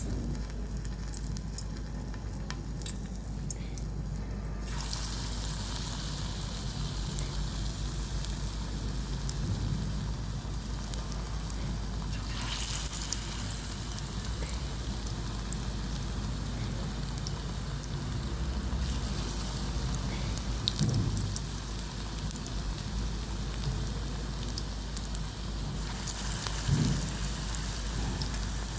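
Pakoras of gram-flour batter deep-frying in hot oil, a steady crackling sizzle that grows much louder about five seconds in.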